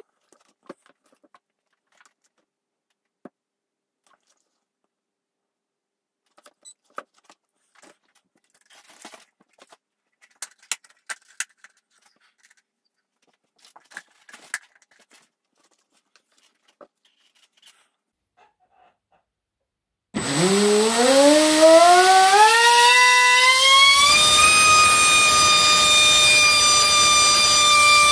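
Leopard LBP2860 2550KV brushless motor spinning a 6x6 Graupner CAM Speed propeller on a bench test, after some faint handling clicks. About 20 seconds in it starts abruptly with a whine that climbs in pitch over a few seconds and then holds steady and loud at full throttle, drawing about 2.6 kW.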